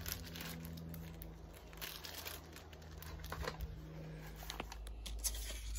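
Clear plastic sample bags of pipe tobacco rustling as they are handled, in faint, irregular crackles.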